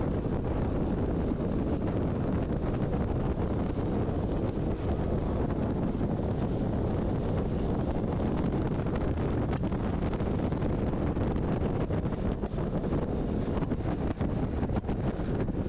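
Steady wind noise buffeting the microphone of a scooter riding at road speed, with the scooter's engine running underneath.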